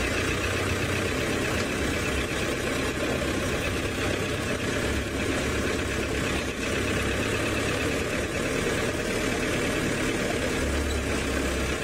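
Open safari game-drive vehicle's engine running steadily as the vehicle drives slowly along a dirt track.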